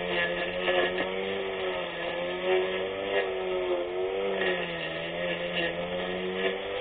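24V brushless electric grass cutter running at speed with a steady hum, its pitch sagging and recovering several times as the blade takes the load of cutting grass. A few sharp ticks are scattered through it.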